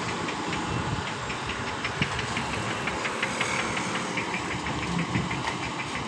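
Diesel engine of a truck-mounted concrete pump idling steadily, with a light, regular ticking over the low rumble.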